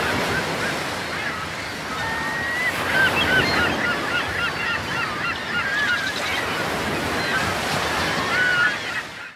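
Ocean surf washing steadily, with many short bird calls over it from about two seconds in until near the end; it all cuts off abruptly just before the end.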